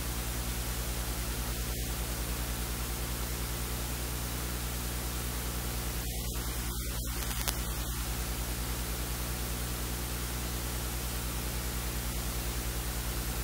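Steady hiss over a low electrical hum: the recording's noise floor, with no other sound but a faint click about seven and a half seconds in.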